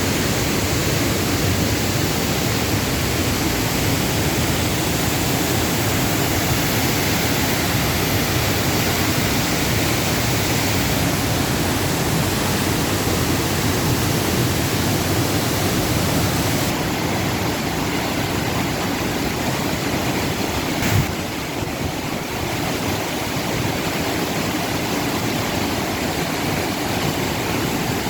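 Steady rush of water pouring over the Upper Düden waterfall, an even dense noise. There is one brief knock about three-quarters of the way through.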